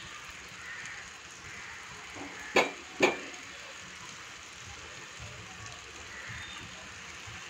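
Faint steady sizzling hiss from the hot chicken masala in the pan as cooked basmati rice is spread over it by hand. Two sharp knocks about half a second apart come about two and a half seconds in.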